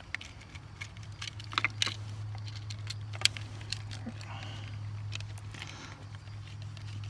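Scattered small clicks and light rattles of wires and a GFCI receptacle being handled while the wires are connected to its terminals, over a steady low hum.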